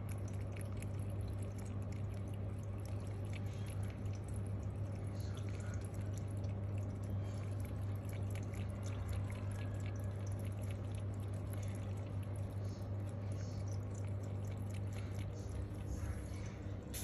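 A cat lapping water from an aquarium, many small irregular wet ticks, over the water trickling from the tank's filter outflow and the filter's steady low hum.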